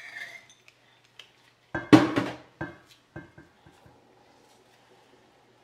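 Kitchenware clatter: a silicone spatula scraping chili crisp out of a glass jar over a stainless steel mixing bowl, then a loud cluster of knocks about two seconds in and a few lighter taps after.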